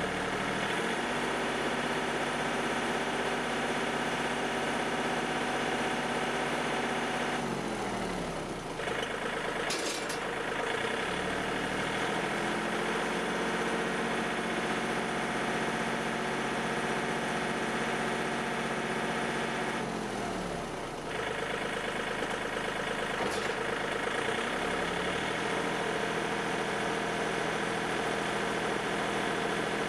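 Yanmar CT226 crawler tractor's diesel engine running steadily with the PTO driving the rear rotary tiller. Twice, about a quarter and about two-thirds of the way through, the pitch sags and comes back up over a second or so.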